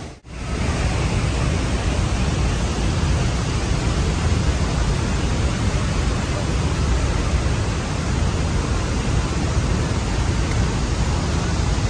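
Steady rushing of Niagara Falls' water, an even wash of noise with no break, heaviest at the low end. It cuts in after a momentary drop in sound at the very start.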